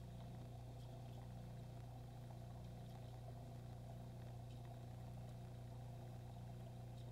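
Aquarium pump humming steadily, with a few faint ticks over it.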